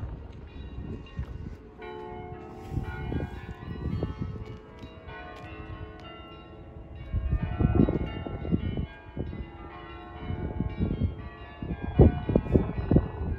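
Bells of several city-centre churches ringing together, their many struck tones overlapping. Gusts of wind buffet the microphone, strongest about midway and again near the end.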